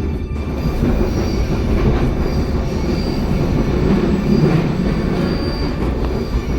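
Pasundan passenger train running on the rails: a steady rumble of wheels and carriage, with faint high-pitched wheel squeals now and then.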